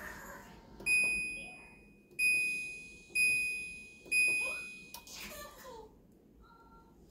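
Uvi Cube UV sanitizer's control panel beeping four times as its buttons are pressed to set a new cycle: single high electronic tones, each starting sharply and fading out over nearly a second.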